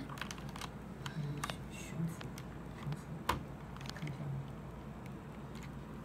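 Scattered plastic clicks and taps from a mechanical keyboard being handled, a keycap pressed back onto its Cherry MX Silver switch, with one sharper knock a little over three seconds in.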